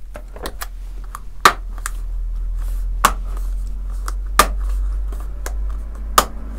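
Plastic clips of an ASUS UX303LA laptop's display front bezel snapping into place as it is pressed down around the edge. The snaps come as a series of sharp clicks, four of them louder and about a second and a half apart, over a low steady hum.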